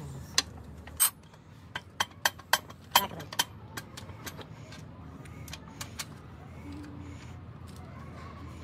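Metal gearbox parts and hand tools clinking and knocking against each other as a gearbox is put together: a quick run of sharp metallic clinks in the first few seconds, then a few single ones.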